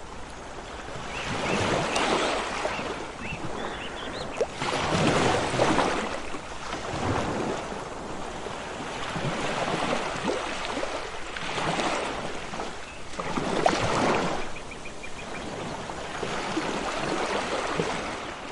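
Seawater splashing and churning around people wading through surf, with wind on the microphone. The noise surges and eases every few seconds.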